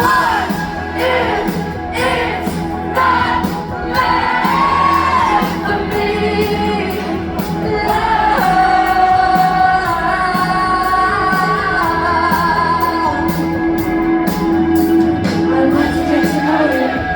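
Live band music: sustained synth-like chords over a steady low drone, with singing throughout and occasional shouts and whoops.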